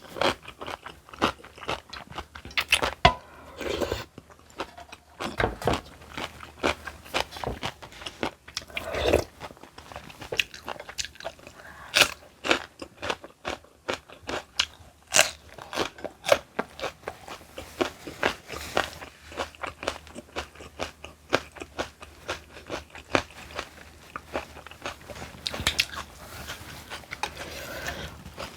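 Close-miked chewing and biting of crunchy kimchi, with many irregular crisp crunches.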